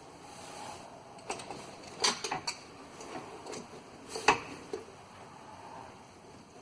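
Metal clinks and clanks of a C-clamp being fitted and worked around a car's oil filter to turn it off: a few sharp clinks in a cluster about two seconds in, and the loudest single clank about four seconds in.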